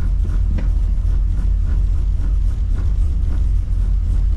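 Holden VX SS Commodore's LS1 V8 idling as it warms up, heard from inside the cabin as a steady low rumble, with a faint click about half a second in.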